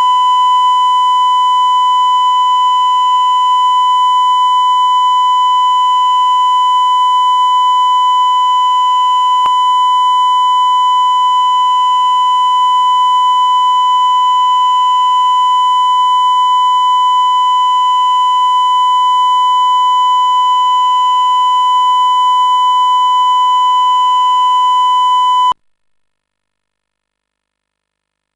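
Broadcast line-up test tone accompanying colour bars: a loud, steady, unwavering high-pitched beep that stops abruptly near the end.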